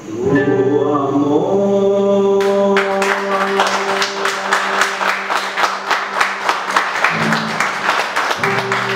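A man's voice holds the last sung note of a tango over a ringing guitar chord, then hand clapping starts about two and a half seconds in and carries on.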